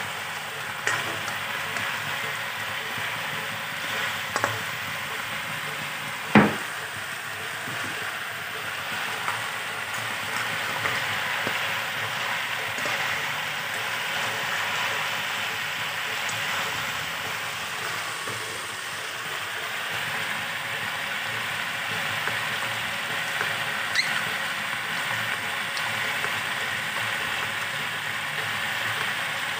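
Chicken adobo frying in oil in a pan, its sauce cooked down, giving a steady sizzle. A few sharp knocks of a spatula against the pan break in, the loudest about six seconds in.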